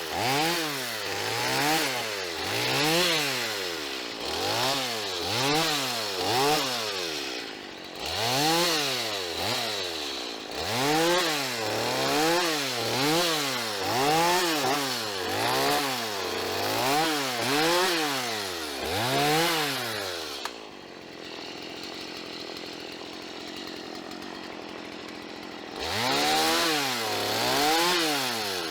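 Chainsaw engine revving up and dropping back about once a second, as in repeated cutting strokes. About two-thirds of the way through it settles to a quieter steady run for several seconds, then the revving resumes.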